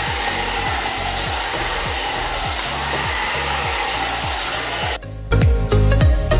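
One-step hot air brush (hair dryer brush) blowing steadily on its high setting over a dance-music beat; the blowing cuts off suddenly about five seconds in, leaving the music louder.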